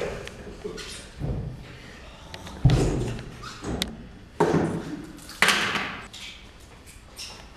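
A series of four heavy thumps, about one to one and a half seconds apart, each fading with a short ring of the room, with fainter knocks in between.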